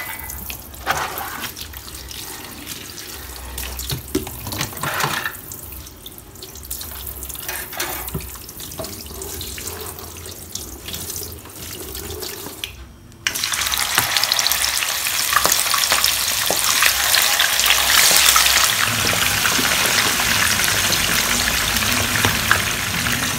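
Dishes being washed at a kitchen sink: scattered clinks of crockery and utensils, then a little over halfway through the tap is turned on and water runs steadily into the sink.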